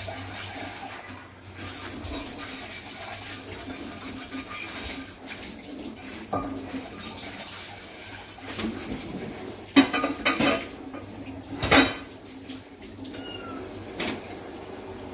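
Dishes and cutlery clinking and clattering during washing-up over a steady hiss of running water, with the loudest clatters about ten and twelve seconds in. A kitten mews faintly near the end.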